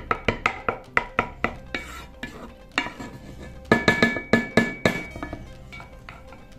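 A spoon and spatula scraping and knocking against a pot while stirring a thick, cooked chocolate pudding mixture, with a cluster of louder clinks around the middle. Light plucked-string background music plays underneath.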